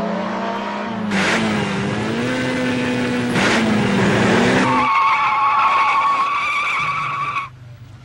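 Racing engine running with its pitch rising and falling, with two brief rushing sounds, then a high-pitched tire squeal for about two and a half seconds that cuts off suddenly near the end.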